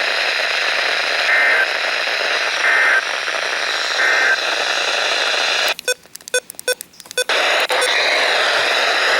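Radio receiver static with three short two-tone data bursts about a second and a half apart: the Emergency Alert System end-of-message code sent after a weather warning. About six seconds in, the hiss cuts in and out with rapid clicks for a second or so before the steady static returns.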